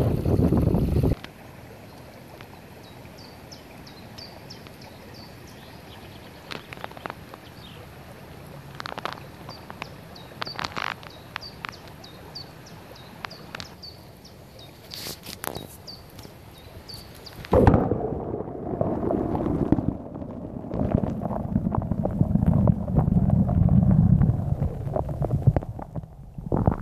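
A shallow stream murmuring gently while a small bird repeats short high chirps, with a few sharp clicks along the way; it opens with a second of wind buffeting the microphone. About two-thirds through, the sound turns into a loud, muffled low rumbling and sloshing with the highs cut off, as the waterproof phone's microphone is held at or under the water surface.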